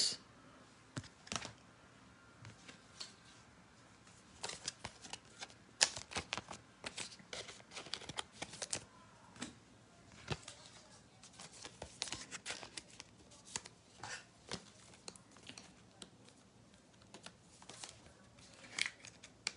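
Trading cards and plastic card holders being handled: scattered light clicks, taps and rustles, coming more often from about four seconds in.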